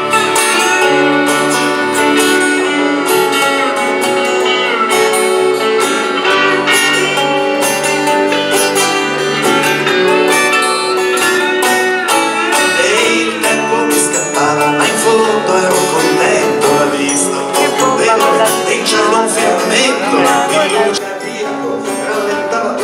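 Live band playing a song on guitars and double bass, the guitar leading with plucked notes and some bent, sliding notes about halfway through.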